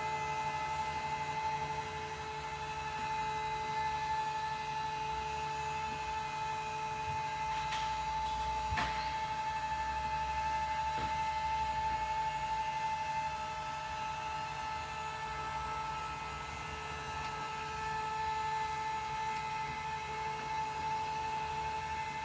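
Electric lift motor of a toy hauler's power drop-down chairs running steadily as it raises the chairs, a steady whine and hum, with a short click about nine seconds in.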